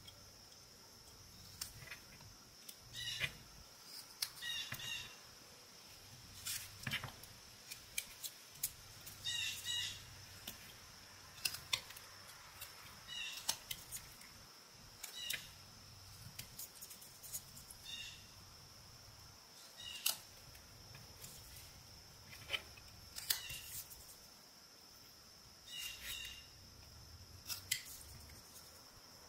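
Whittling knife cutting eastern white pine: short slicing strokes at irregular intervals of a second or two, each a brief scrape or click, some with a short high squeak as the blade shaves the wood.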